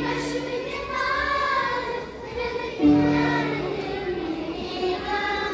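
Children's choir singing a song together, holding long notes.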